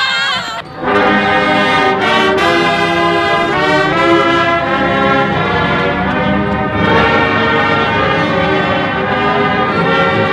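Brass music: brass instruments playing a run of held notes and chords, taking hold about a second in after a brief drop in level.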